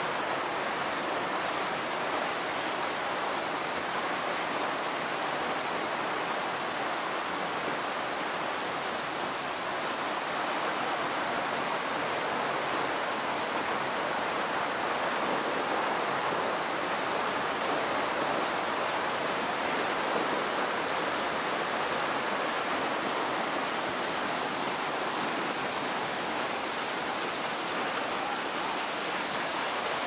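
Loud, steady rushing of a waterfall close by, an even wash of water noise without a break.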